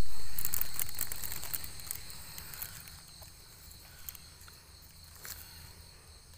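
A low rumble starts at an edit cut and fades away over the first three seconds. After it come faint scattered rustles and snaps as hands pick straw mushroom buttons out of oil palm fibre, over a steady high drone of insects.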